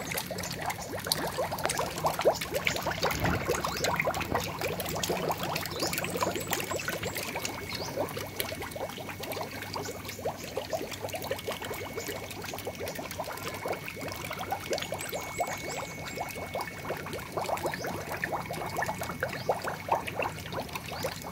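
Water pouring and trickling steadily into an eel-rearing tank, with a constant patter of small splashes on the surface.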